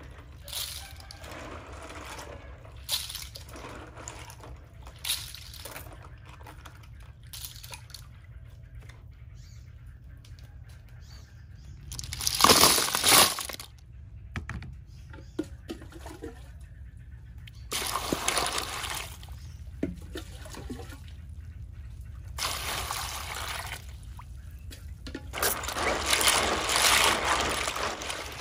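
Small clams being washed by hand in a plastic basin of water, with water sloshing and shells clattering together. There are several louder bursts of splashing and pouring, and the loudest comes about halfway through.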